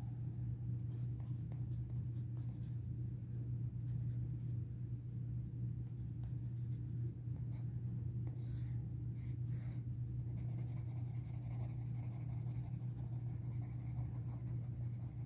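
Pencil lead scratching on paper: a colour name is written, then a small swatch is shaded with a Derwent Graphitint tinted-graphite pencil. A steady low hum runs underneath.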